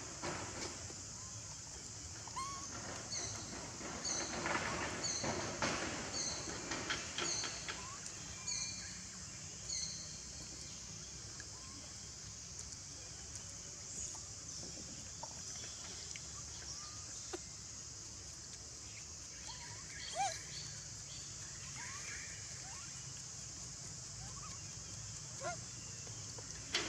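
Outdoor woodland ambience: a steady high hiss, with a short high chirp repeating a little more than once a second for several seconds, starting a couple of seconds in. A few brief squeaks come later.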